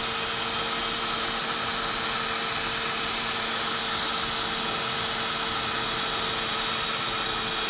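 Electric heat gun running steadily, its fan blowing hot air with a constant motor whine, melting powder paint onto a lead buzzbait head.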